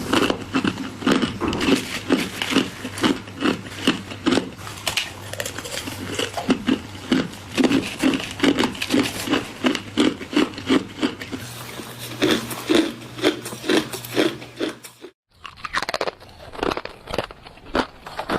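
Solid ice being bitten and chewed, a steady run of crisp crunches two or three a second. There is a short break to silence about fifteen seconds in, then the crunching starts again.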